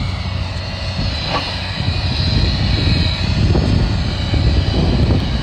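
Wind gusting and buffeting a phone's microphone: a loud, uneven low rumble that swells and eases.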